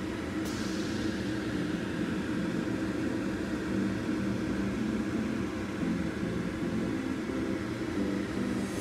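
A steady mechanical hum with a low drone, and a light click about half a second in.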